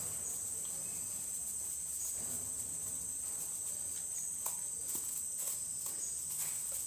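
A steady, high-pitched chorus of insects, with a few soft clicks as salt is shaken from a plastic container over sliced bamboo shoots.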